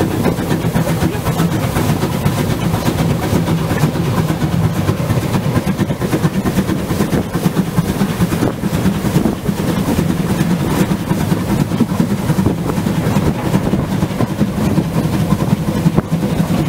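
750 mm gauge steam locomotive 99 1781-6 running along the line, heard close up beside it: a steady, loud running noise of the engine and its wheels on the rails.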